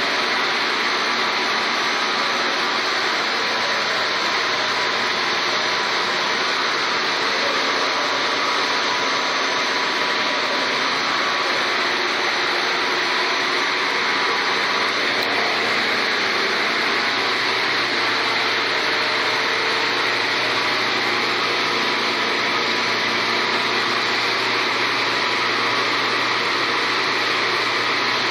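Tortilla-chip production machinery running: a steady, unbroken motor whir and hiss from the dough sheeter, rollers and cutter.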